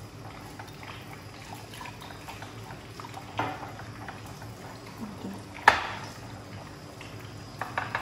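Cold water being poured little by little into beaten yogurt for lassi, a steady liquid sound, with a sharp clink of a utensil or vessel a little before the middle-to-late part and a softer knock earlier.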